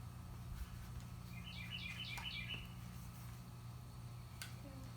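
A bird calling: a quick run of chirps about a second and a half in, over a steady low background hum, with a single click near the end.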